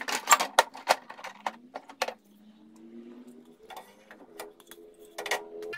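Sharp clicks and knocks of the camera being handled close to the microphone, several in the first two seconds and more near the end, with a faint tone slowly rising in pitch in between.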